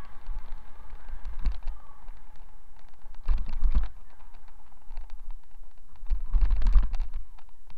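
Bicycle rolling along a paved path, heard from a camera mounted on the bike: a steady low wind-and-road rumble with many small rattles and clicks from the bike. Louder bursts of rumble and rattle come about three seconds in and again about six seconds in.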